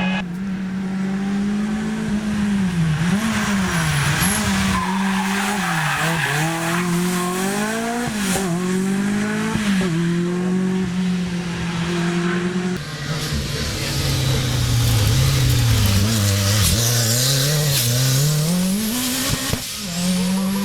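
Rally car engine at full throttle on a stage, the revs climbing and falling again and again with gear changes and lifts.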